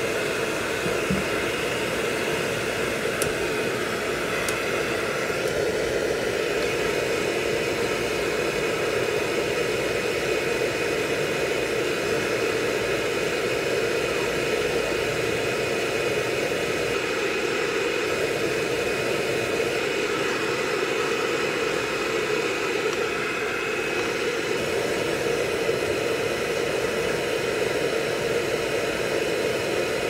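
Handheld hair dryer running steadily: an even rush of blown air with a faint steady motor whine.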